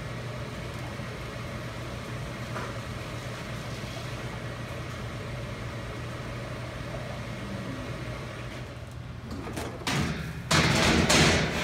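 Steady low hum of brewhouse equipment. About ten seconds in, loud scraping and rustling start as wet spent grain is raked out of the mash tun.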